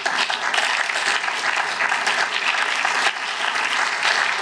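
Applause from a seated group of parliamentarians: many hands clapping steadily.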